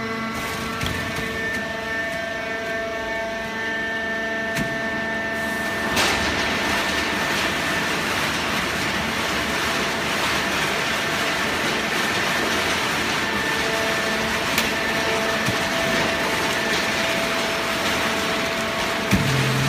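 Hydraulic carton baler running: the motor and pump give a steady machine hum, joined about six seconds in by a louder, rushing hiss, with a single click near the end.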